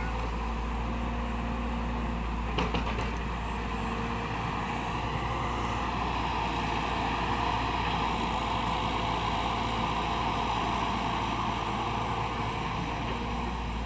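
Excavator's diesel engine running steadily, growing somewhat louder through the middle, with a brief clank a little under three seconds in.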